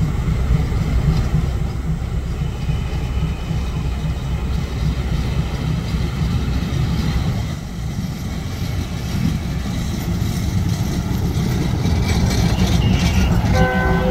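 Train running with a steady low rumble, joined by rattling and clatter in the last few seconds. A horn starts sounding right near the end.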